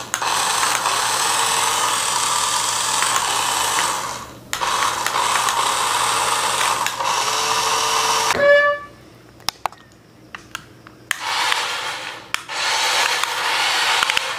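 Small toy RC car's electric drive motor and plastic gears whirring steadily as the wheels spin freely off the ground, with a brief break about four seconds in. The whirring stops after about eight seconds, leaving a few clicks, then comes back in short bursts as the remote's buttons are pressed.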